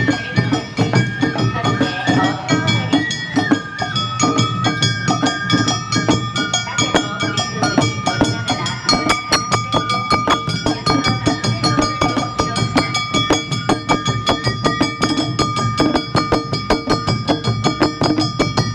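Awa Odori festival music: a Japanese bamboo flute plays a stepping melody over taiko drums and a rapidly struck kane gong. About eight seconds in the flute line fades back and the clanging gong strokes and drumming take over in a brisk, even beat.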